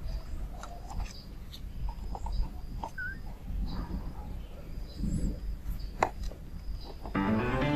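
A tiny kitten making small animal sounds and scuffling in a plastic basket, with scattered light clicks and a small high chirp about three seconds in. Soft music starts near the end.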